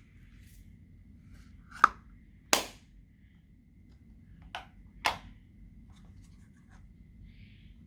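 Slime being handled and pressed, giving four sharp clicking pops in two pairs, about two seconds in and about five seconds in.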